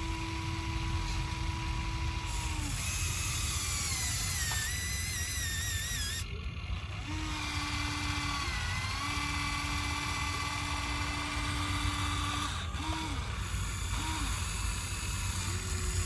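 Small electric motors of a radio-controlled excavator and truck whining in runs of one to three seconds, starting and stopping several times with a short gap near the middle, over a steady low rumble.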